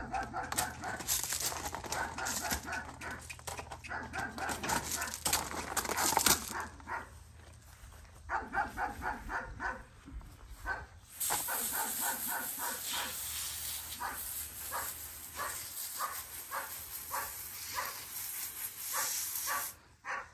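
A dog barking rapidly and repeatedly, several short barks a second in runs, with a steady hiss through much of the second half.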